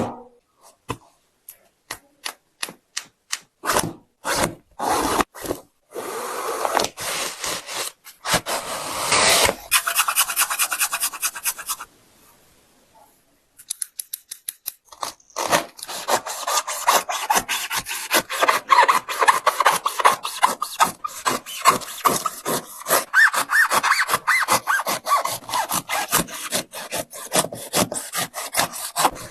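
Repeated rasping back-and-forth strokes of a blade sawing through a Nike Hyperdunk X Low basketball shoe. The strokes are spaced out at first, stop briefly about twelve seconds in, then come quicker and steadier.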